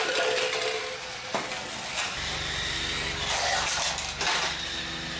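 Remote-control toy vehicle in use: plastic clattering and knocks, then a steady motor hum starting about two seconds in.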